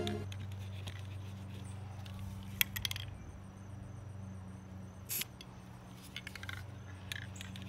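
A quiet break in electronic background music: a low, steady sustained bass tone with a few sharp clicks, a short hiss about five seconds in, and a quick run of clicks near the end.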